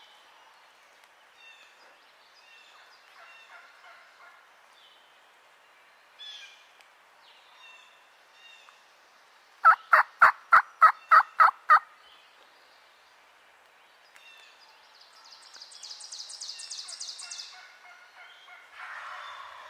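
Wild turkey calling: a loud run of about eight evenly spaced yelps, about four a second, lasting about two seconds midway through. Songbirds chirp throughout, and a high trill sounds near the end.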